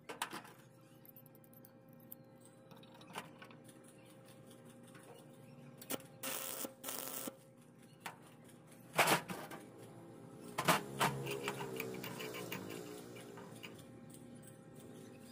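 Steel parts handled on a steel workbench: a bolt and nut knocking against steel, with scattered sharp clinks and knocks, the loudest about nine and eleven seconds in, and brief scraping noises about six seconds in, over a faint steady hum.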